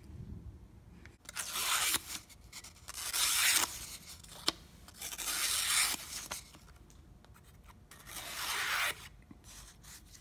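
Freshly honed chisel slicing through a sheet of paper: four cutting strokes of about a second each, with one sharp click between the second and third, a test of the edge's keenness.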